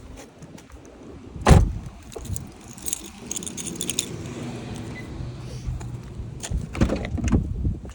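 A sharp knock about one and a half seconds in, then about a second of small metal pieces jingling, over a low steady hum, with a few more knocks near the end.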